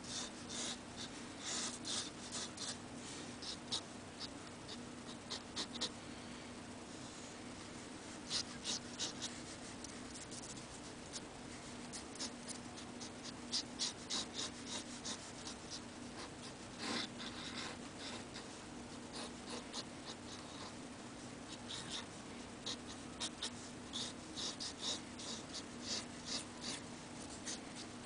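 Fountain pen nib (a circa-1955 Onoto De La Rue) scratching across paper in quick short strokes, in clusters with brief pauses between them. A faint steady low hum lies underneath.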